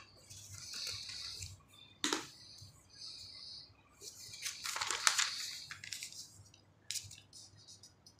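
A notebook's paper page being handled and turned by hand: rustling and crinkling paper, with a sharp crackle about two seconds in and the loudest swish of the page about five seconds in.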